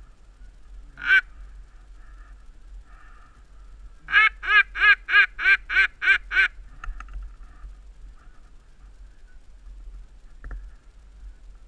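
Duck quacking: a single loud quack about a second in, then a run of about nine quacks at roughly four a second.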